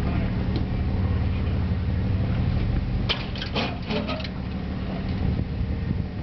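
Engine of a lifted Toyota pickup running as it crawls over boulders, a steady low rumble. A quick run of sharp clicks and knocks comes about three to four seconds in.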